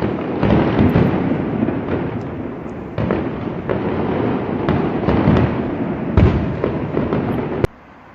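Fireworks display: a dense barrage of overlapping bangs and crackling, with several heavier booms, that cuts off suddenly near the end.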